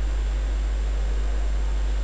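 Steady low hum with hiss and a faint high whine, unchanging throughout, with no handling clicks.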